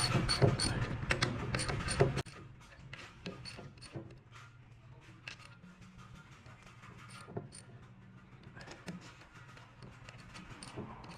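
Scattered light metallic clicks and taps of tools and engine parts being handled. A steady low hum with clicks fills the first two seconds and cuts off abruptly.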